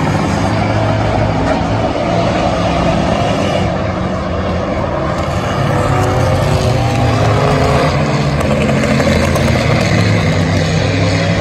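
Several race car engines running together at speed around the oval, loud and steady, getting a little louder partway through.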